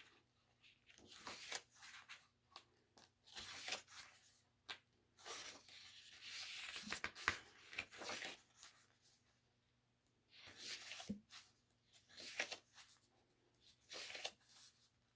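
Paper pages of a photo book being turned by hand: a soft swish and rustle every second or two, with a longer run of rustling about five to eight seconds in.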